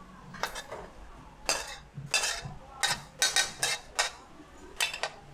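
Metal spatula clanking and scraping against a wok in about nine quick strokes at uneven intervals, as the cook stir-fries.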